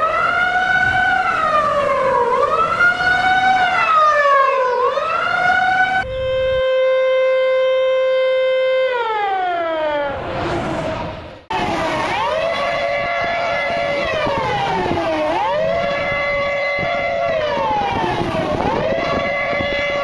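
Sirens played back at four times normal speed, so their wail is compressed. One siren wails up and down in quick cycles of about two seconds. About six seconds in it changes to a steady tone that glides down, with a brief noisy sweep. Then a second siren wails up and down in similar quick cycles.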